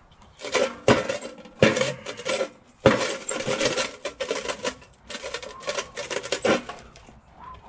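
Metal charcoal chimney starter full of fully lit briquettes being lifted and jostled: a string of irregular metallic clanks and rattles, the coals clinking against the steel can, some clanks leaving a short ringing tone.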